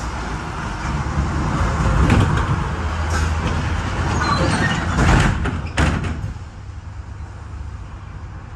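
LVS-86K tram heard from inside the car as it moves slowly: a steady low running hum and rattle, with two sharp knocks a little past halfway, after which it goes quieter.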